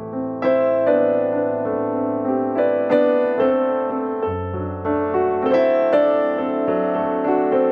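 Background music: a gentle piano-style keyboard melody of single struck notes over held low bass notes that change about four seconds in.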